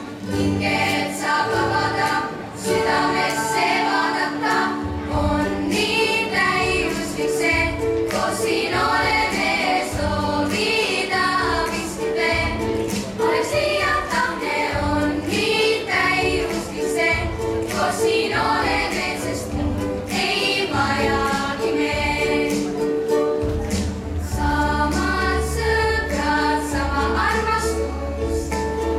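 Children's choir singing a pop song in Estonian, many young voices together, over instrumental accompaniment with sustained low bass notes that grow heavier near the end.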